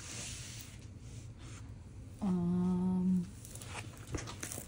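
A person hums one steady, level 'mmm' for about a second, midway through. Soft rustling comes from hands sliding over the clear plastic film that covers a diamond painting canvas.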